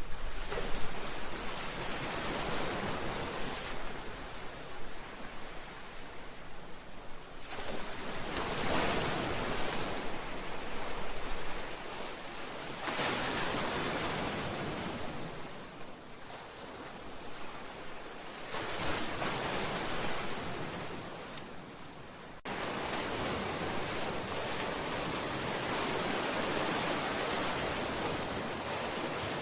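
Sea waves breaking against a seawall and breakwater: repeated surges of rushing water that swell and fade every few seconds. About two-thirds through the sound changes suddenly to a steadier, continuous rush.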